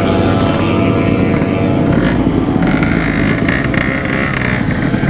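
Yamaha RX-King 135 cc single-cylinder two-stroke motorcycle running on the road, with wind rushing over the microphone. A brighter, higher note comes in for a couple of seconds in the middle.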